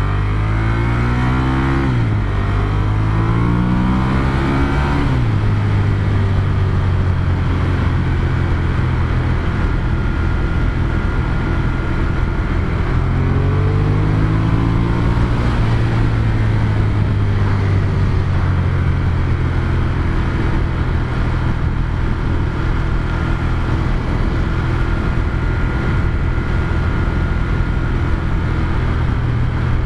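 Ducati Monster 1200S's L-twin engine with its stock exhaust, under way: revs climb and drop sharply twice at gear changes about two and five seconds in, then it runs at steadier revs with another climb in revs around the middle.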